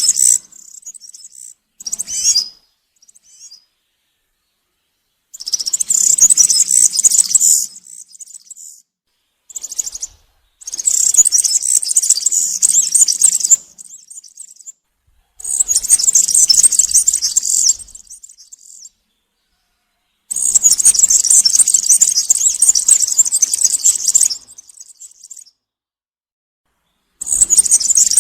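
European serin singing in repeated high-pitched phrases of about two to four seconds, each a dense, rapid run of notes, with short silences between them.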